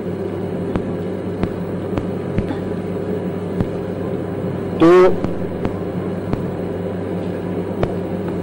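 Steady low hum and background noise of an old lecture recording, with faint scattered clicks; one short spoken word about five seconds in.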